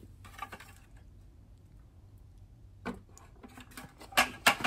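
Quiet handling noise from a water bucket and a postal scale being handled: a few short, sharp clicks and knocks, a cluster of them about three and four seconds in.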